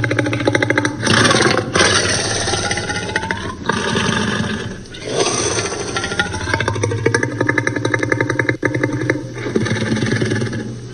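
Tyrannosaurus rex roar sound effect: a string of long, low, rumbling growl-roars whose pitch slides up and down, broken briefly about four and five seconds in.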